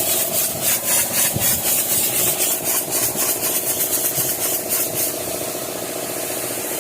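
Hyundai bus diesel engine idling, with a high hiss that pulses about four times a second and turns steadier about five seconds in.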